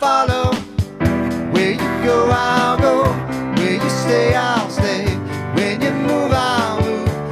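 A worship song: a singing voice with instrumental accompaniment and occasional sharp percussive hits.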